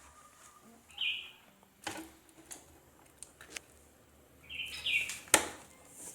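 A bird chirping twice, a short call about a second in and a longer one near the end. Scattered light clicks come between them, and a sharp click just after the second call is the loudest sound.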